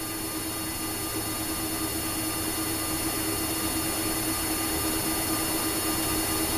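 Steady drone inside a Boeing 767-200 cockpit with the jet engines running at idle: a rushing hum with one held tone and a low rumble, growing slightly louder.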